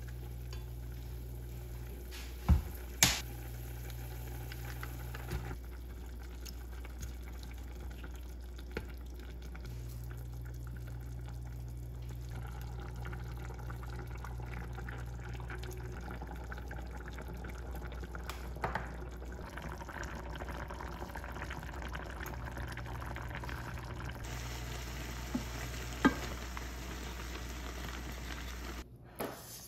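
Soup bubbling and sizzling in an enamelled cast-iron pot while a wooden spoon stirs it, over a steady low hum. Two sharp knocks of the spoon against the pot come about two and a half seconds in, and another near the end.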